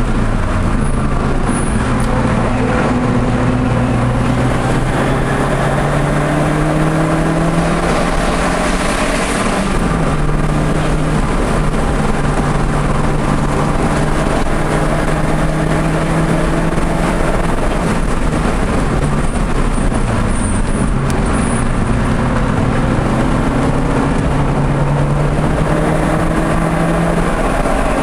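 Audi TT engine heard from inside the car at track speed, its note climbing steadily under acceleration and dropping sharply at gear changes about ten and twenty-one seconds in. A steady hiss of road and wind noise runs underneath.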